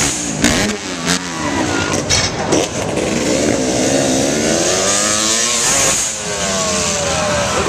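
Dirt bike engines revving hard, the pitch swooping up and falling away again and again as the throttle is opened and closed. A few sharp knocks come in the first few seconds.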